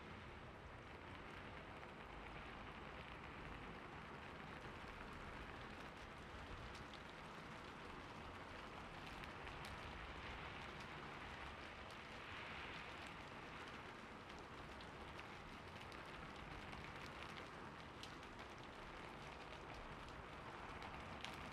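Fountain water splashing, faint and steady, with scattered small drop sounds.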